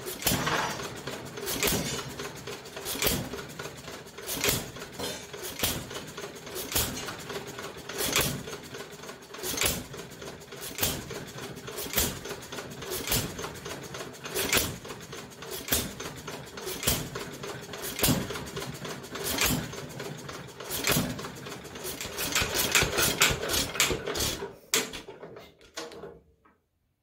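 Nelson Brothers hit-and-miss engine running on battery-and-coil ignition: a sharp firing bang about every one and a half seconds, with lighter mechanical clicking between the bangs. The sound dies away near the end.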